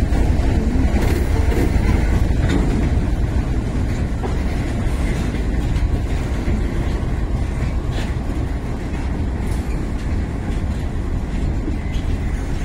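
A train of BOXN open-top freight wagons rolling past close by: a steady rumble of steel wheels on the rails, with a few sharp knocks as wheels cross rail joints.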